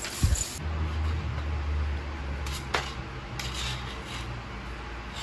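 Light plastic clicks and clatter from a kitten batting the ball around a tiered plastic cat track toy, a few sharp clicks about two and a half to three and a half seconds in. A dull thump near the start and a low steady hum run underneath.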